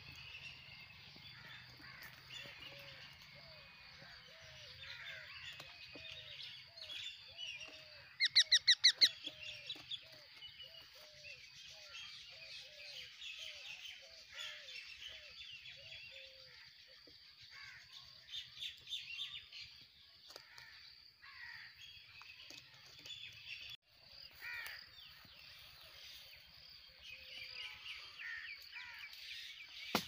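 Several birds chirping and calling, with a quick run of about seven loud, harsh calls about eight seconds in and a low call repeated about twice a second through the first half.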